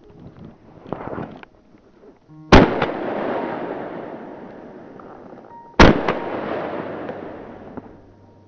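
Two shotgun shots about three seconds apart, each followed by a long rolling echo that fades away over a few seconds.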